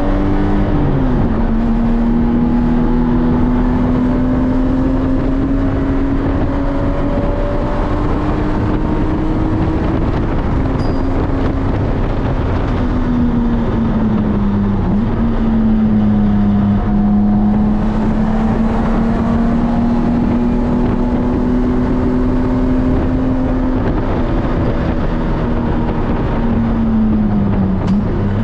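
BMW E46 3 Series engine pulling hard, heard from inside the cabin: a loud, steady drone whose pitch climbs slowly under acceleration. The pitch drops with a gear change about a second in, and falls away twice more, around fifteen seconds in and near the end, over steady tyre and road noise.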